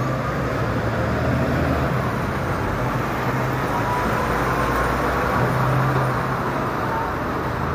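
Road traffic: motor vehicles running by with a steady low engine hum over tyre and street noise, swelling a little in the middle and easing off near the end.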